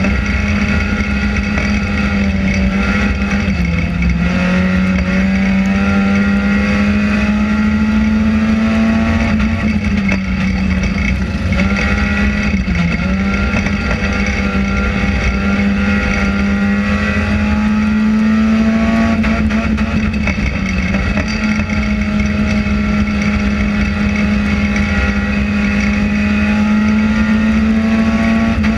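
An enduro race car's engine runs hard at steady high revs, heard from inside the stripped-out cabin. Its pitch dips briefly a few times and then comes back up.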